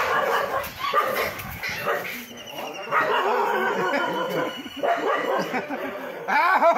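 A dog barking.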